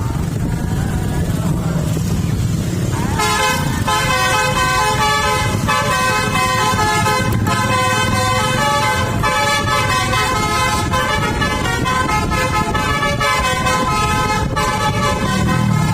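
A bus's multi-tone telolet basuri horn playing a fast, rhythmic melody of stepped notes, starting about three seconds in over the low rumble of the bus's engine.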